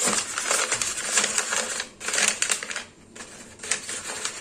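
Sheet of butter paper (parchment) crinkling and rustling as it is pressed and folded into an air fryer basket, in irregular bursts with a short lull about three seconds in.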